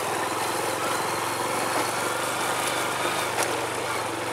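Small motorcycle engine running at a steady speed while riding along a rough dirt track, with a hiss of wind and road noise over it.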